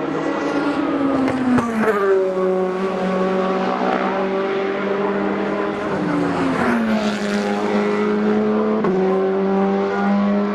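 Endurance race car engines running hard out of a corner, the engine note dropping in pitch three times.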